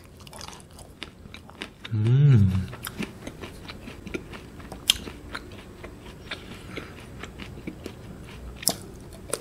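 Chewing and crunching a KitKat ice cream bar with a crisp, wafer-like coating, many small crisp crunches in a row. About two seconds in, a short sound from the eater's voice.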